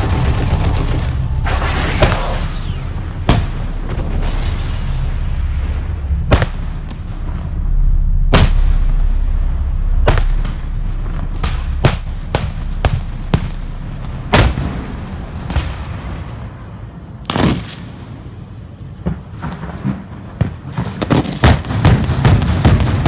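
Fireworks display: loud bangs of aerial shells bursting at irregular intervals, over a steady low rumble. Near the end it turns into a rapid run of crackling bangs.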